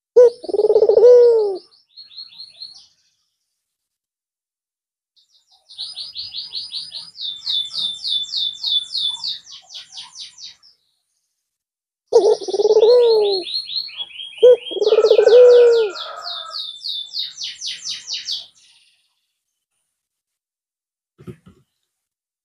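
A white (albino) Barbary dove, known in Indonesia as a puter, giving three loud drawn-out coos with an arched pitch: one near the start and two close together about halfway through. Alongside and between the coos, another small bird chirps in rapid high trills.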